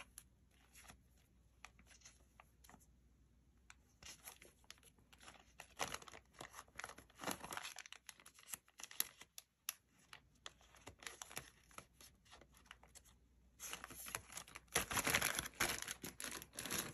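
Paper sticker sheets rustling and a clear plastic zip bag crinkling as sheets are pulled out and laid on a table. The crinkling comes in scattered strokes, with louder stretches around six to eight seconds in and again near the end.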